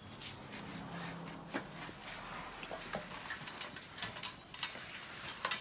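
Light clicks and knocks from an aluminium folding ladder being handled and climbed, coming more often over the last couple of seconds.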